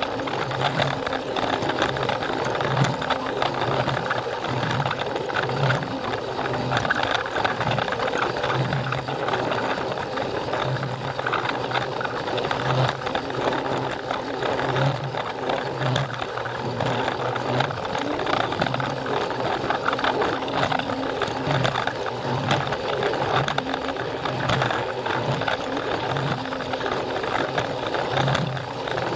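Plarail toy train's small battery motor and plastic gearbox whirring steadily as it runs along plastic track, with a pulsing low hum and frequent small clicks.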